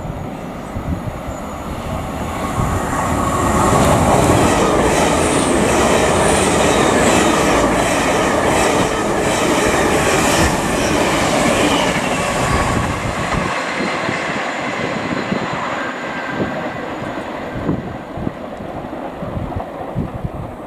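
Great Western Railway Hitachi Intercity Express Train passing close by. It grows louder as it approaches and stays loudest for several seconds while the carriages go past, with a run of wheel clacks. It then fades away.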